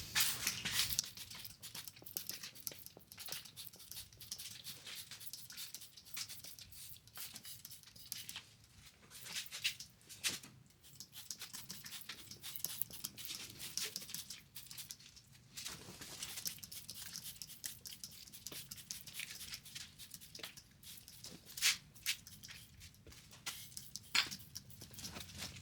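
Trigger spray bottle squirting Ospho, a phosphoric-acid rust treatment, onto the bare sandblasted steel of a front axle beam. It gives many short hissing squirts at an irregular pace.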